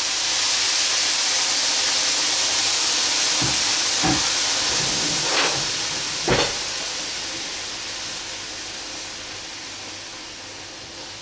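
Boiling water poured from a kettle into a hot frying pan of seared liver and onions, with a loud hiss of steam and sizzle that slowly dies down over several seconds. A few short knocks of utensils against the pan come around the middle.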